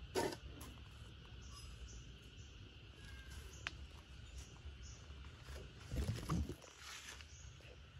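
Faint outdoor garden ambience: a steady high insect drone over a low rumble. It is broken by two short rustling bumps, one near the start and one about six seconds in, with a single light click in between.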